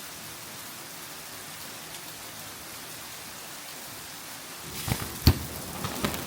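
Steady rain falling. About three-quarters of the way through it gets louder, with scattered sharp drip-like ticks and one loud knock.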